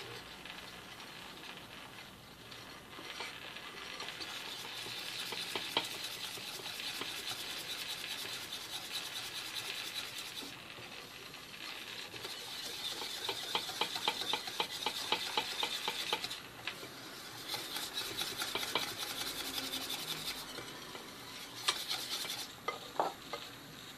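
A utensil stirring thick melted chocolate and hot milk in a glass bowl set over a bain-marie, in quick rhythmic strokes that stop briefly a few times. This is the hot milk being worked into the chocolate for a glaze.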